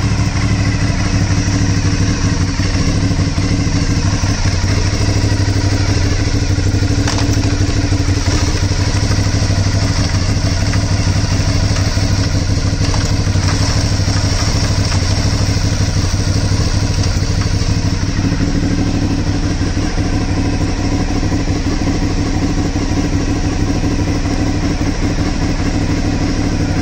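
2013 Aprilia Shiver 750's V-twin engine idling steadily.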